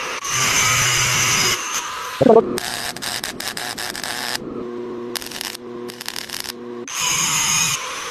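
Power tool running in short bursts that start and stop abruptly, with a brief loud squeal about two seconds in and a steady low hum through the middle.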